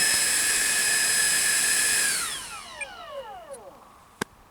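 The 70 mm electric ducted fan of a Freewing Hawk T1 RC jet on 6S, whining steadily at high throttle, then spooling down with a falling pitch from about two seconds in as the throttle is cut. A single sharp click comes near the end.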